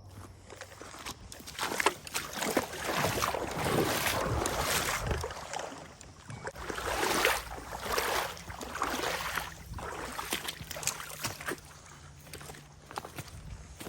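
Irregular sloshing and splashing steps through shallow creek water and mud, with a low steady rumble underneath.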